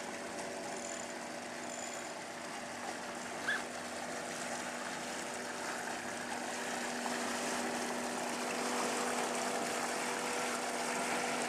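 A boat's engine running at a steady speed, a constant drone, with water washing along the hull. It grows slightly louder towards the end.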